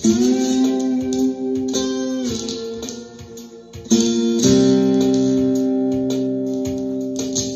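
Ovation Koa acoustic-electric guitar in open C tuning, played with a ceramic slide. A chord is struck and held, slides down to a lower chord about two seconds in, then is struck again about four seconds in and left ringing, over a steady drum rhythm.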